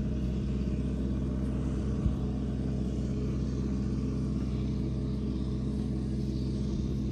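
A vehicle's engine running steadily with a low, even hum, heard from inside the vehicle with the window open. A single short knock about two seconds in.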